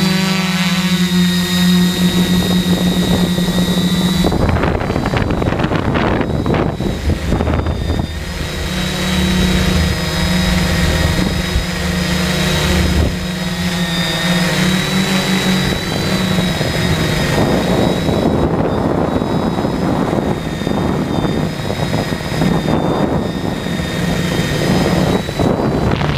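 Radio-controlled helicopter's motor and rotor running in flight, heard from a camera mounted on the helicopter: a steady whine over rushing wind noise, which becomes rougher and gustier about four seconds in.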